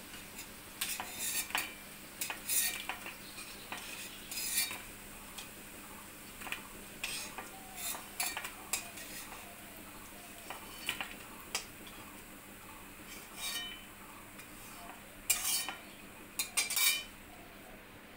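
A metal spatula scrapes and clinks against a steel kadai as fried lentil pakoras are lifted out of the oil, in irregular strokes that are loudest near the end. Under it the hot oil sizzles faintly after the gas has been turned off.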